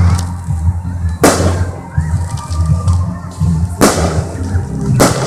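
Fireworks exploding overhead: three sharp bangs, about a second in, near four seconds and near the end, over a steady low rumble.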